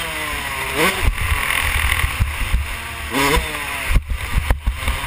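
Yamaha YZ125 two-stroke single-cylinder engine ridden on a dirt track: the revs rise sharply twice as the throttle opens and fall away off the throttle, over wind rumble on the onboard microphone. A couple of sharp thumps near the end.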